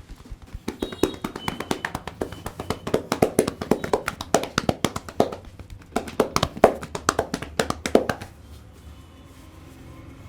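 Rapid percussive massage strokes: hands slapping and tapping on skin several times a second in a quick rhythm. There is a short pause near the middle, and the strokes stop a couple of seconds before the end.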